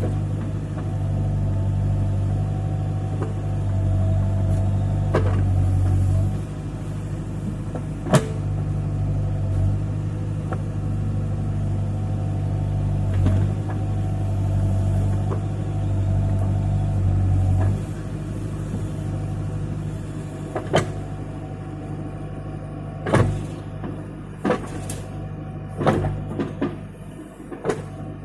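Case 580 backhoe's diesel engine running steadily under changing load while digging, its deep hum easing twice, with sharp clanks from the bucket and boom, more of them near the end.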